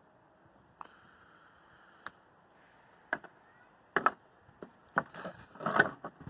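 Paper and an envelope being handled on a wooden table: scattered sharp taps and rustles, busiest and loudest near the end. About a second in, a faint high steady tone sounds for a second or two.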